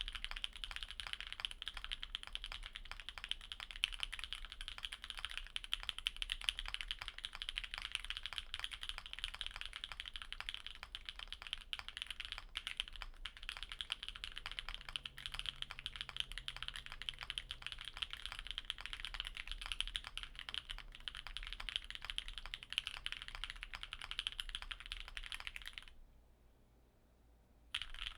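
Continuous fast typing on a Sneakbox AVA mechanical keyboard with lubed and filmed Autumn Rain ('Speechless') switches in an aluminium plate and GMK keycaps: dense, crisp key clacks. It stops for about a second and a half near the end, then starts again.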